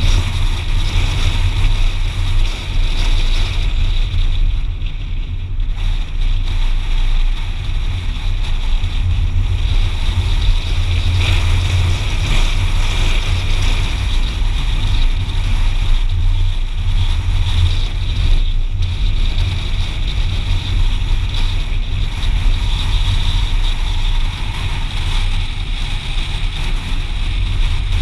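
Car driving along a road, heard from inside the cabin: a steady low rumble of engine and tyres with wind noise.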